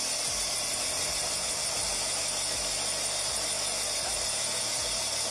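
Helicopter cabin noise in flight: a steady, even hiss of engine and rotor with a low hum beneath.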